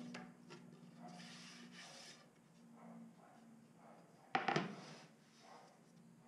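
Pine board being handled, rubbing and shifting, with one sharp knock about four seconds in as it is set down on the planer's steel table. A faint low hum sits underneath.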